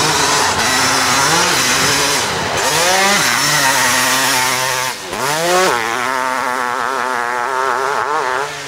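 Hillclimb motorcycle engine revving hard under throttle as the bike climbs the hill. The revs rise and fall several times, drop briefly about five seconds in, then climb sharply and hold high.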